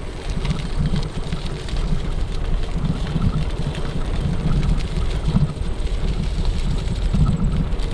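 Wind buffeting a Movo VX-R10 Pro camera microphone fitted with foam and furry windscreens, heard as an uneven low rumble from riding a bicycle fast. Bicycle tyres roll over gravel underneath with scattered crackling ticks.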